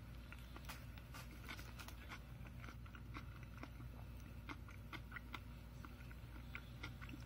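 A person chewing a mouthful of veggie burger, faint, with many small irregular clicks and crunches, over a steady low hum.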